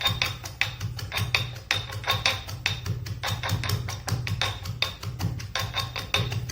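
Grated ginger, tulsi and betel leaves being pounded with a pestle: repeated sharp knocks, about two to three a second, at an uneven pace.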